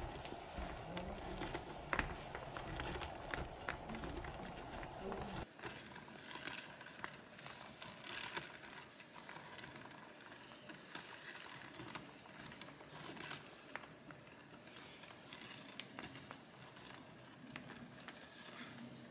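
Faint, irregular light clicks and taps from cords being braided by hand on a wooden kumihimo braiding stand. A low background rumble drops away suddenly about five and a half seconds in.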